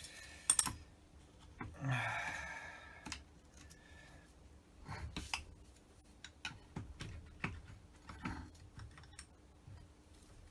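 Light clicks and taps of small metal carburettor parts and hand tools being handled on a workbench, with a short scraping rustle about two seconds in.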